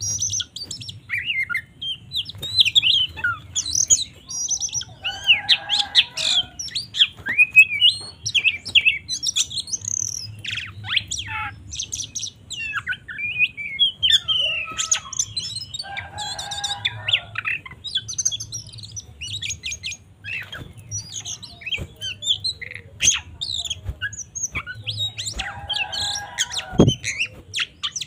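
Oriental magpie-robin (kacer) singing a varied fighting-mode song of quick whistled and chattering notes, broken three times by a harsher, lower buzzy call.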